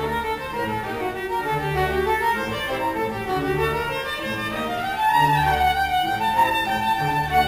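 Solo viola playing a melody over a string orchestra, with low strings sounding repeated held notes underneath. About four seconds in the solo line climbs and the music grows louder.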